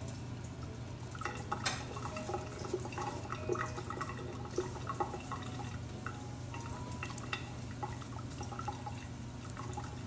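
Water dripping and splashing in a stainless-steel kitchen sink, with many small irregular splashes and light knocks of a plastic cup as a toddler plays in the water.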